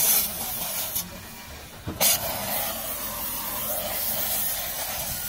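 Hissing noise like air or spray, starting sharply at the beginning and again about two seconds in, then running steadily.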